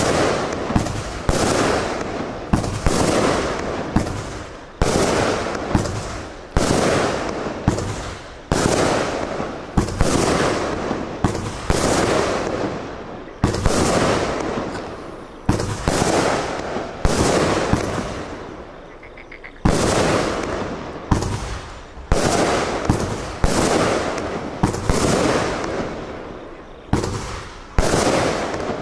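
Feronia AC30-25-1, a 25-shot 30 mm firework cake, firing a shot every one to two seconds. Each shot is a sharp bang followed by a hiss that fades over a second or so.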